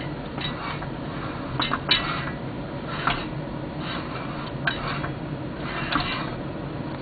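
Metal parts of a Ski-Doo Everest 440 two-stroke snowmobile engine clinking and knocking as they are worked by hand. There is a sharp metallic knock about every second or so, over a steady low hum, most likely while the piston is moved to check that the rings do not catch on the cylinder ports.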